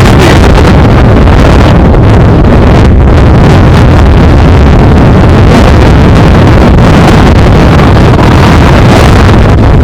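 Strong wind buffeting the microphone: a loud, continuous rumbling roar, heaviest in the low end.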